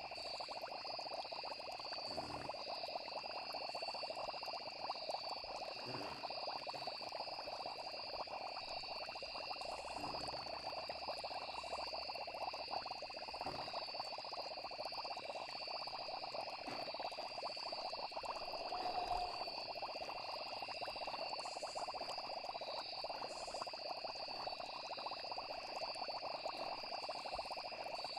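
Steady night chorus of frogs and insects with continuous high trilling, over a dense crackling layer lower down.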